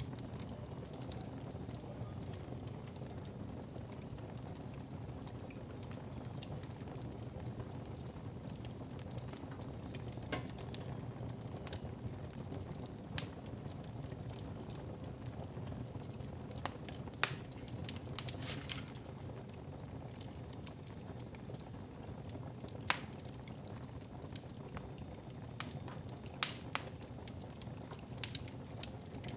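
Wood fire crackling in a fireplace: a steady low rush with irregular sharp pops of burning logs every few seconds.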